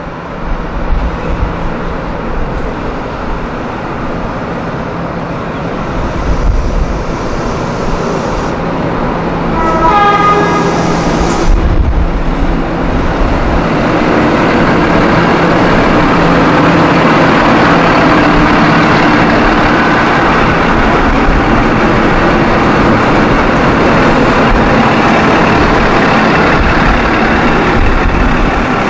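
XPT diesel express train coming into the platform: a short horn blast about ten seconds in, then the stainless-steel carriages roll close past with a steady rumble and wheel noise over a low steady hum.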